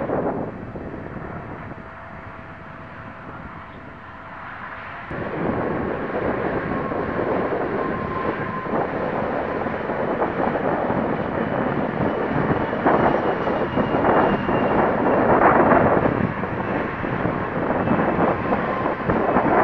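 RC foamboard plane's motor running, mixed with a rush of wind and hiss, heard through the small 808 keychain camera's microphone; the sound gets louder and fuller about five seconds in.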